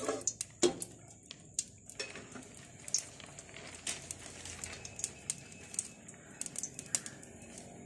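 Cooking oil heating in a pan, with scattered small crackles and pops at irregular intervals over a faint hiss. A spoon is drawn through the pan briefly at the start.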